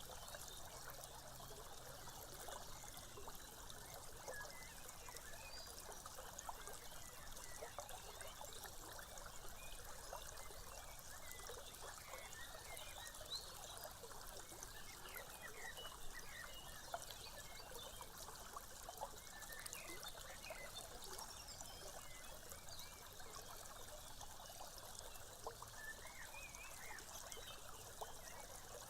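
Faint recorded nature sounds: a stream trickling steadily, with scattered small chirping calls.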